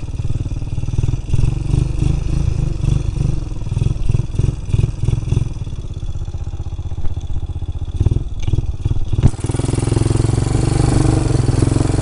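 A small off-road vehicle's engine running as it drives over rough ground, with repeated knocks and rattles from the bumps. About nine seconds in there is one sharp knock, after which the engine runs more steadily.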